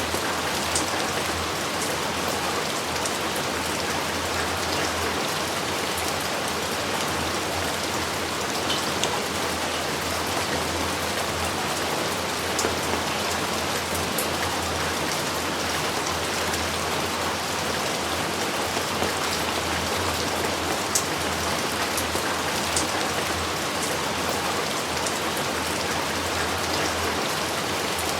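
Steady heavy rain falling, a dense even hiss with scattered sharper drops striking nearby.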